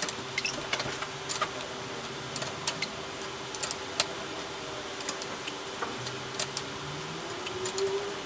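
Scattered light metallic clicks and ticks as a Campagnolo Super Record bottom bracket cup, Italian-threaded, is handled and turned by hand in the bicycle frame's bottom bracket shell, over a steady low hum.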